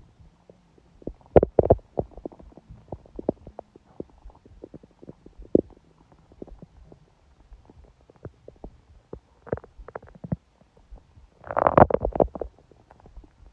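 A woman's stomach growling during her period: a run of short irregular gurgles and pops, with a louder gurgle about a second and a half in and a long, loud gurgle near the end.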